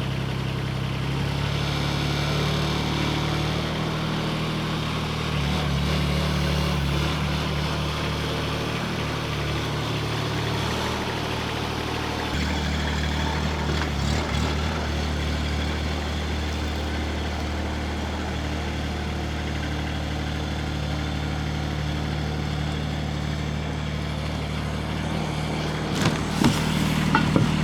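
The three-cylinder Kubota D902 diesel of a mini excavator runs steadily at raised throttle, its note stepping in pitch a few times. A few short knocks come near the end.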